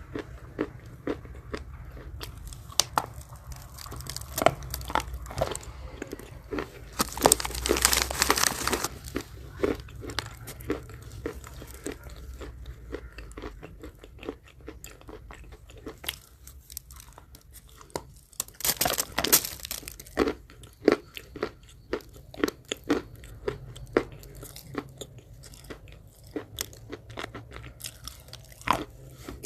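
Biting and chewing pieces of chalk close to the microphone: a steady run of sharp crunches and snaps, with two longer, harsher crunching stretches, about a quarter of the way in and again past the middle.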